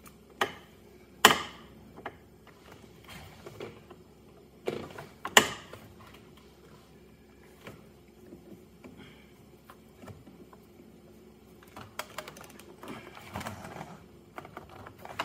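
Scattered sharp clicks and clacks of metal and plastic parts being worked by hand as a gas strut is fitted into a car's center console armrest hinge mechanism. The loudest snaps come about a second in and about five seconds in, with a quicker run of small clicks near the end.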